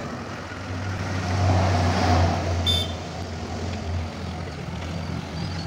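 A box truck's engine running as it drives slowly through a low railway underpass, getting louder for a couple of seconds and then easing off. A single short high-pitched beep cuts in about halfway.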